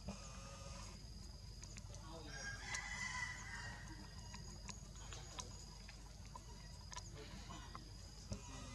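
A rooster crows once, about two seconds in, over scattered small clicks and tearing as a long-tailed macaque pulls husk fibres off a coconut.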